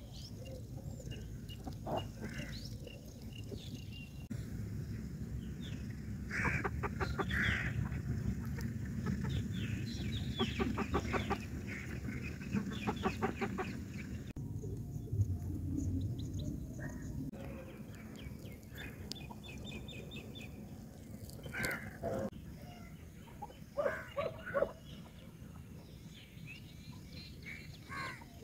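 Birds calling, with two stretches of quick repeated notes in the middle and a few shorter calls near the end, over a steady low rumble.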